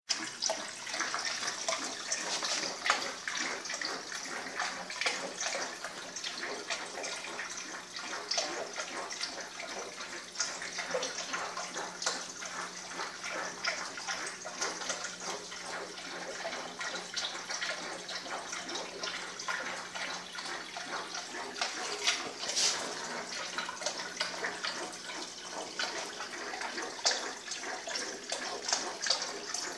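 Water circulating through a small aquaponics fish tank, splashing and trickling steadily, with a faint low hum that stops about two-thirds of the way through.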